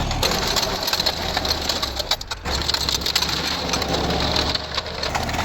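Tractor engine driving a Sonalika multi-speed rotavator, with a steady low engine hum under a dense, rapid clattering rattle. The sound dips briefly about two seconds in.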